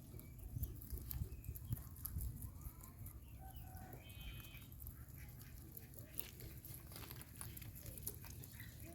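Faint clucking of chickens: short, scattered calls, the clearest a little after four seconds in, over a low rumble.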